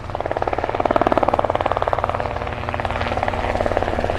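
Helicopter rotor blades beating in a fast, even pulse over a low engine hum, growing louder over the first second and then holding steady.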